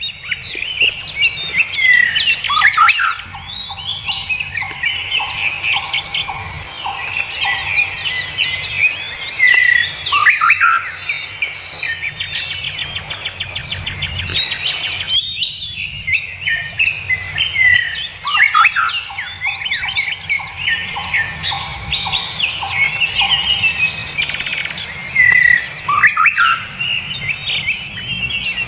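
Many songbirds chirping and calling at once, a dense, overlapping chorus of short tweets, quick pitch glides and rapid trills.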